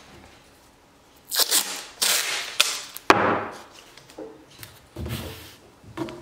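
Masking tape being handled on a wooden workbench: a run of about five sharp, crackling rips and knocks, the loudest about two to three seconds in.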